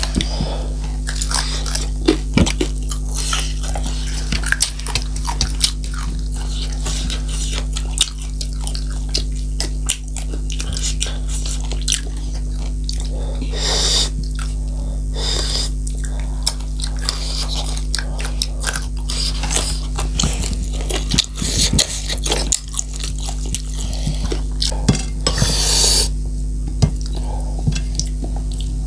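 Close-up eating sounds: chewing and mouth noises with frequent short clinks and scrapes of a plate, over a steady low electrical hum.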